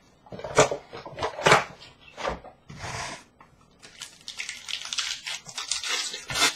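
A box of hockey card packs being opened by hand: its plastic wrap and cardboard crackling and tearing in a run of sharp crackles over the first two seconds. Then the packs' wrappers rustle and crinkle as they are taken out and laid down, in a denser stretch near the end.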